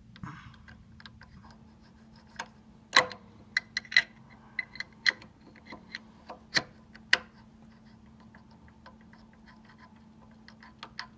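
Small metal parts clicking and tapping by hand on the feed gearbox of a small Chinese lathe as the shift lever is fitted: irregular sharp clicks with a short metallic ring, the loudest about three and four seconds in and again near seven.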